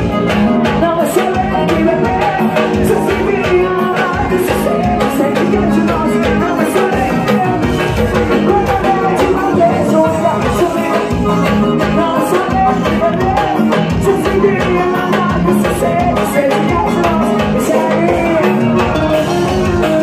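Live forró (pisadinha) band playing with a steady beat: bass, electric guitar, congas and keyboard, with a woman singing into a microphone.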